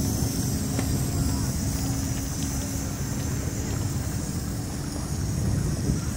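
Steady low rumble of running engines, with a steady hum that fades out about halfway through, a high hiss and faint distant voices.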